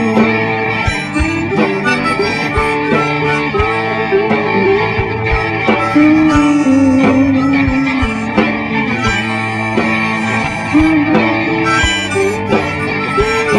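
Instrumental break of a blues-rock song: a lead line with bending notes over electric guitar and drums, with no singing.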